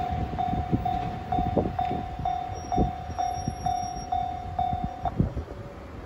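Japanese level-crossing warning bell ringing an even electronic ding about twice a second, then stopping about five seconds in once the train has cleared. Under it, the wheels of a receding train clatter over rail joints, fading away.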